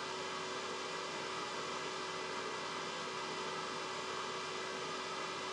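Steady electrical hum over a low hiss, with no other sound.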